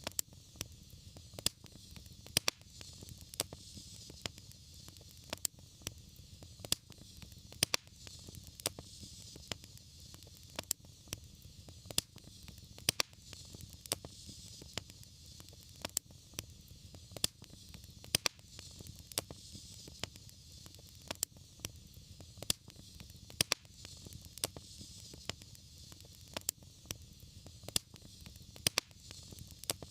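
Wood fire crackling: sharp pops and snaps, a couple a second, over a steady low rumble and hiss of the flames.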